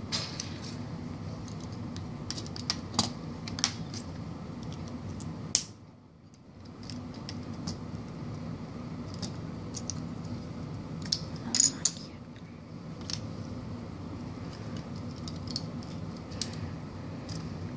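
Lego bricks clicking and snapping as pieces are pressed onto a small Lego car and handled on a table: irregular sharp plastic clicks, a few louder ones, over a steady low background hum.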